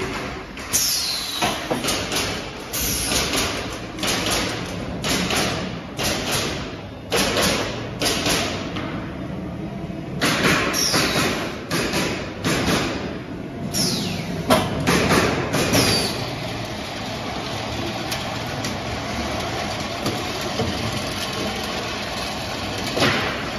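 Pneumatic nailing heads of an automatic wood pallet nailing machine firing nails in an irregular series of sharp shots, with bursts of air hiss. After about 16 seconds the shots stop and the line's machinery runs on with a steady noise.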